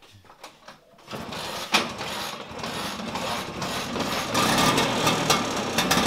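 Small motorcycle engine starting about a second in and then running, getting louder toward the end.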